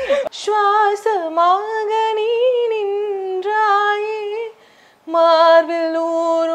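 A woman singing unaccompanied: a slow melody in long held notes that glide gently between pitches, with a short breath break about two-thirds of the way through before the next held note.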